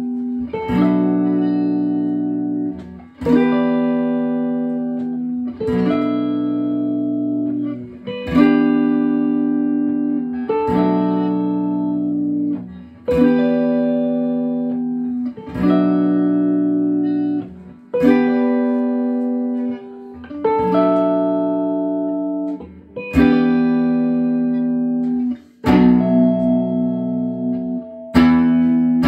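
Two electric guitars, an Ibanez AF75T hollow-body through a Fender Blues Jr. and a G&L ASAT through a Laney 10-watt tube amp, playing a slow instrumental jam: ringing chords struck about every two and a half seconds and left to sustain, with quicker playing in the last second.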